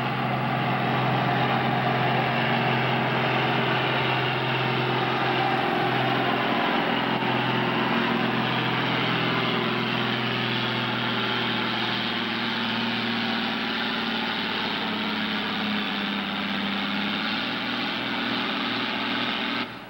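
Farm tractor's diesel engine running flat out under heavy load as it drags a weight-transfer pulling sled, a dense, steady sound that cuts off abruptly near the end.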